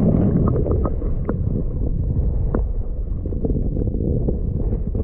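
Muffled water noise picked up by a camera held under the surface of a rock pool: a dull, steady rumble with a few faint clicks and knocks scattered through it.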